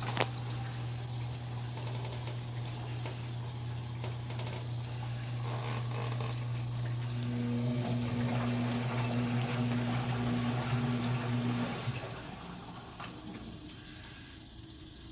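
KMC washing machine running with water, a steady mechanical hum under the sound of moving water. The hum cuts off about twelve seconds in, followed by a click.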